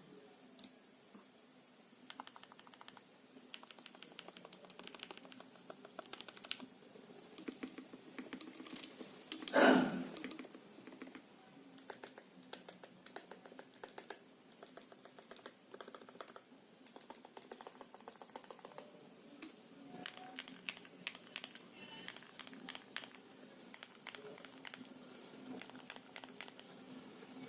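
Typing on a Tecware Phantom L mechanical keyboard with low-profile Outemu Red linear switches, lubed with Krytox 205g0 and foam- and tape-modded, giving soft muted clacks in runs with short pauses, through a phone's built-in microphone. About ten seconds in comes one much louder thump.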